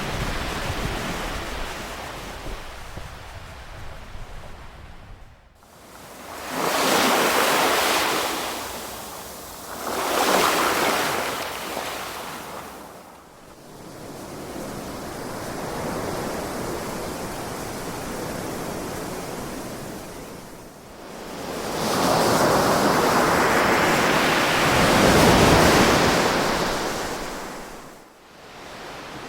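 Ocean waves washing ashore in slow swells: a surge about six seconds in, another about ten seconds in, and a longer, louder one in the last third, each followed by a receding hiss.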